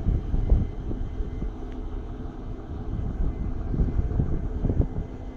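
British Rail Class 150 diesel multiple unit's underfloor Cummins diesel engines idling with a steady drone as the train stands at the platform. Wind gusts buffet the microphone at intervals.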